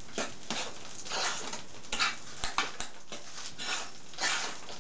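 A fork stirring thick pancake batter in an enamel pot: irregular scraping strokes, with a couple of sharp clinks of metal on the pot about halfway through.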